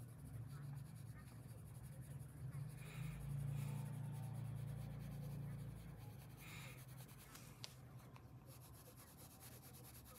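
Crayon scratching faintly on paper in short colouring strokes, over a steady low hum.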